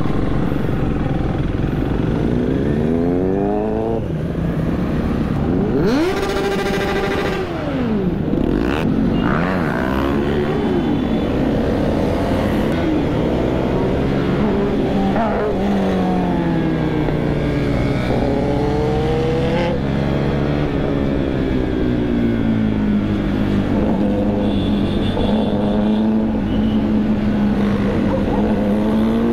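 KTM Duke 390 single-cylinder engine heard from the rider's seat at riding speed, its pitch rising and falling again and again as the rider opens the throttle and shifts gears, over steady wind noise. About six seconds in, a brief hard rev climbs steeply and drops back. Near the end the engine holds a steady pitch while cruising.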